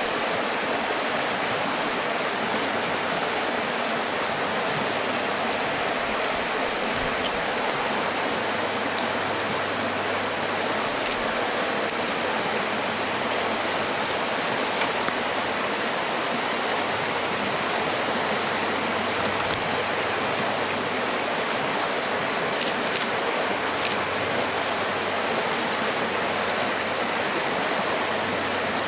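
Rushing river rapids: white water running steadily over rocks, an even, unbroken wash of noise.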